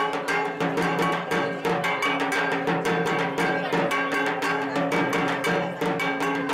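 A rope-tensioned barrel drum beaten with thin sticks in a fast, steady rhythm, with sustained pitched tones ringing underneath.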